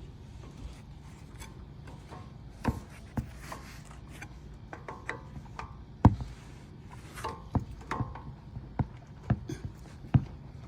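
Scattered metal clicks, knocks and scrapes of a pry bar working between the brake pads and rotor of a Toyota Tundra's front caliper, levering the caliper pistons back. The sharpest knock comes about six seconds in.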